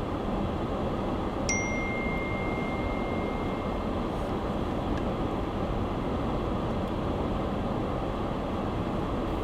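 Steady engine and road noise inside a car's cabin. About a second and a half in, a single electronic dashboard chime sounds and holds its tone for a couple of seconds.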